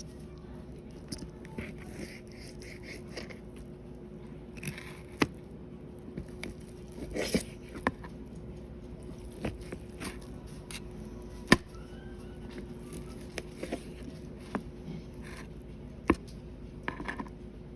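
Knife cutting cooked chicken breast on a cutting board: irregular sharp knocks of the blade on the board, a few of them loud, with scraping between them.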